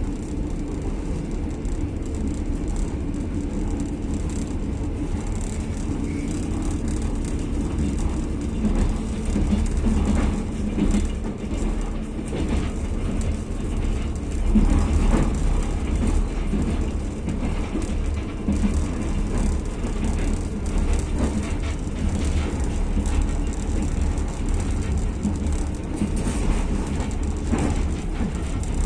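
Passenger train coach running along the track at speed, heard from inside the carriage: a steady low rumble of wheels on rails, with irregular clicks and rattles scattered through it.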